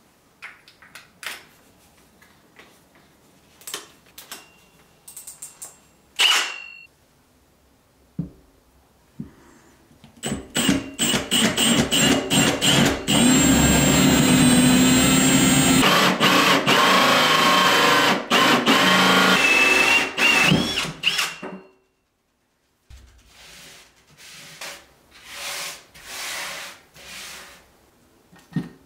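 Cordless Milwaukee FUEL drill spinning a hole saw through a wooden countertop, running loud and steady with a whine for about eleven seconds in the middle. Scattered clicks and knocks of handling come before and after it.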